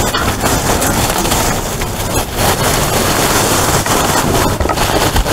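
Plastic trash bags rustling and crackling as they are grabbed and shifted, with many small crackles in a dense, continuous rustle.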